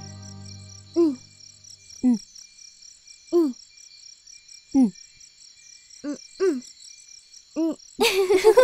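Night ambience: crickets chirp in a steady pulsing chorus while an owl gives about seven short single hoots at uneven intervals of roughly a second. Voices come in near the end.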